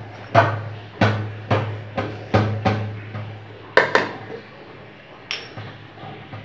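A metal spoon knocking against a dish while salt is added to flour: about eight sharp, ringing taps in the first four seconds, and one more a little after five seconds.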